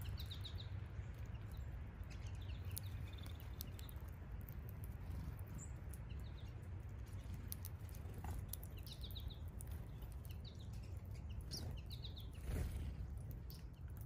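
Small birds chirping in short runs of quick high notes, about a second in and again around nine seconds, with scattered faint clicks over a steady low outdoor rumble. A brief louder rush of noise comes near the end.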